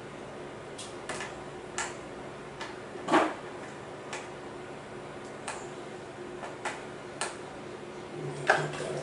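Light clicks and taps of metal game tweezers against the plastic Operation board, about a dozen scattered ticks as a piece is worked at, the loudest about three seconds in and another near the end, over a faint steady hum.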